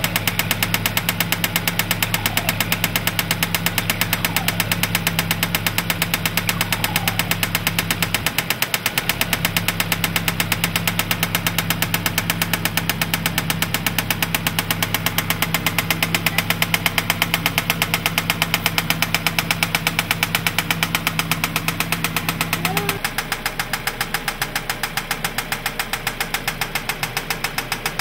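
2003 Mazda 6 2.3-litre four-cylinder engine running with a rapid, even knock, the knocking sound the owner is recording. About five seconds from the end a steady low hum drops out and the engine gets a little quieter, while the knock carries on.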